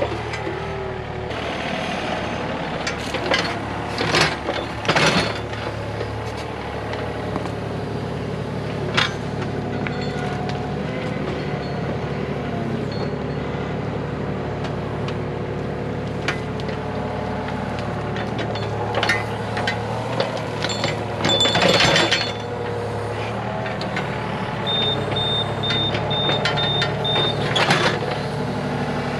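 A heavy machine's engine running steadily, with several loud knocks and scrapes of stone being dislodged, and a run of about six short high beeps near the end.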